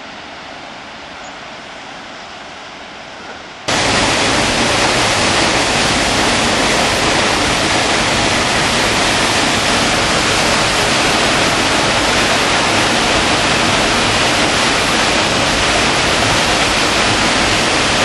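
Waterfall pouring down rock into a pool: a loud, steady rush of water that comes in suddenly about four seconds in, after a fainter steady hiss.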